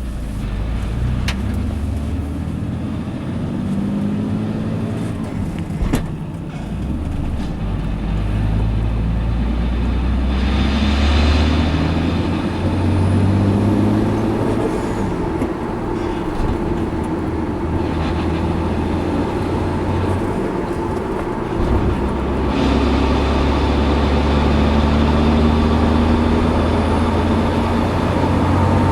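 Toyota Supra MKIV twin-turbo's 2JZ-GTE inline-six running, with engine speed rising and falling and shifting in steps, and a rattle coming from the car. A sharp click sounds about six seconds in.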